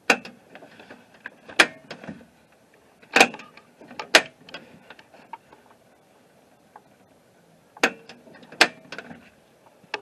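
Sharp metallic clicks and clunks of a truck door handle and latch being worked, about six of them, some in pairs, as the freshly repaired handle is tried out.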